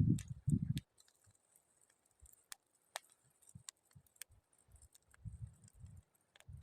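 Wood campfire crackling, with scattered sharp pops and snaps. Low rumbling bursts come in the first second and again near the end.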